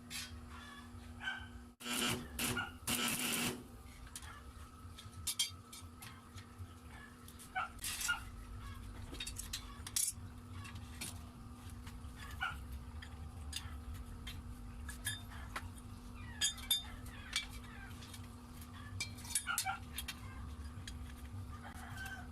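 A dog barking now and then, over a steady low hum.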